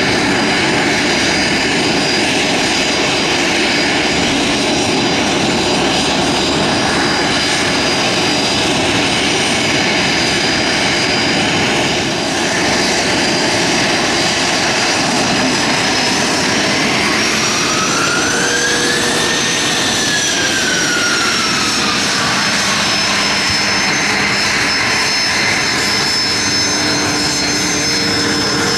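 Bombardier CRJ-200's twin rear-mounted GE CF34 turbofans running at taxi power: a steady jet roar with a high whine. About two-thirds of the way through, the whine rises and then falls in pitch as the jet turns past.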